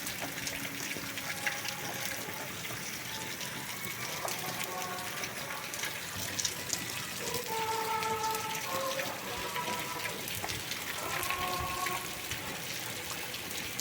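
Steady rain falling, an even hiss of water splashing and running.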